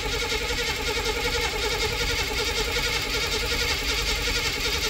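Jeep J10's engine turning over on the starter and trying to run on gas poured into the carburetor, a continuous rough mechanical sound that cuts off just at the end: it needs more gas.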